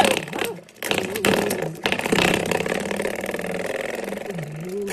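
Coiled-spring door stopper flicked by a dog, giving off a buzzing 'doing' twang. It is struck about one and two seconds in, and each time rings on with a steady buzz that slowly dies away.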